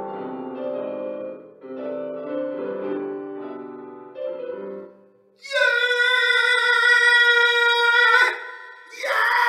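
Electronic keyboard played with both hands in a piano voice, chords for about five seconds. Then a man sings one loud, long held note in an operatic style for nearly three seconds, and starts another held note near the end.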